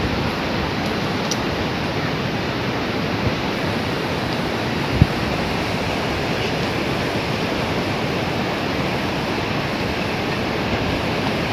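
Steady outdoor rushing noise with a single sharp knock about five seconds in.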